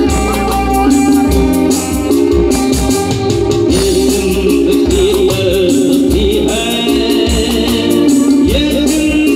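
Live band playing a Hindi film song through a PA system, a male singer's voice held on wavering notes over electric guitars, keyboards and a steady beat.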